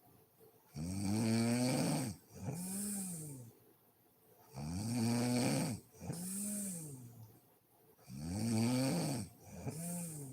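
A woman snoring in deep sleep, three breaths about every three and a half seconds: each a loud, rising-and-falling pitched snore followed by a softer, breathier one.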